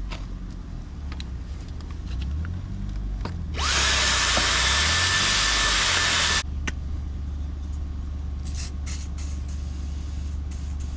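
An aerosol can of WD-40 sprayed in one hiss of about three seconds, starting abruptly with a whistle that rises in pitch and then holds, and cutting off sharply: penetrating oil going onto a stuck seat bolt. A low steady engine drone runs underneath.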